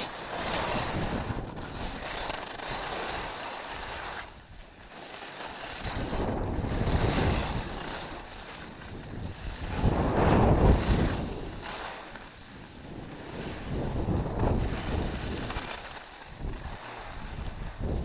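Skis scraping over hard-packed, tracked-up snow with wind rumbling on the microphone, the hiss swelling and fading about every three to four seconds as the skier turns, loudest about ten seconds in.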